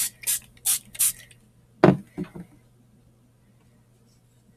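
Trigger spray bottle of water squirted four times in quick succession, each a short hiss, then a knock and two lighter taps about two seconds in.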